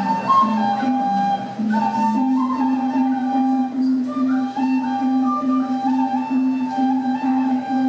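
Live music: a flute melody of held, gliding notes over a low note that pulses steadily about twice a second.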